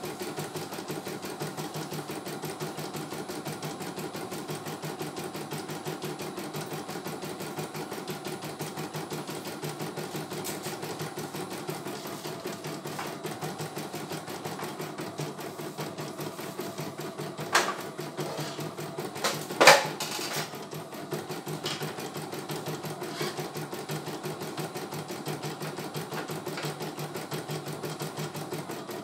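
CNY E900 computerised embroidery machine stitching a design, its needle running in a fast, even rhythm as the hoop moves the fabric. A few sharp knocks come in the last third, the loudest about two-thirds of the way in.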